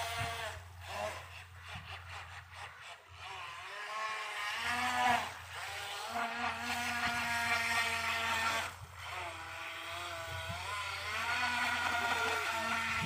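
Electric RC speedboat running on the water on an 11-volt battery. Its motor whines in a pitch that rises and falls as the throttle is worked, dropping away briefly twice.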